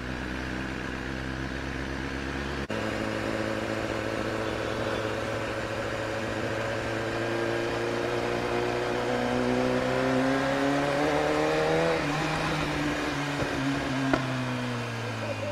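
BMW S1000RR's inline-four engine on its stock exhaust, revs rising slowly and smoothly as the bike accelerates, then holding and dropping away near the end as the throttle closes.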